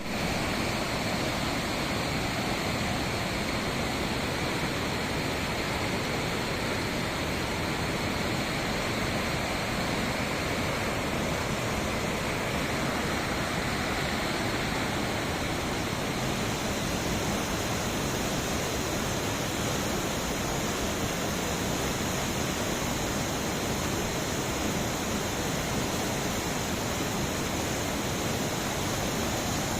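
Steady roar of a flooded river's rushing water, an even full-range rush with no breaks.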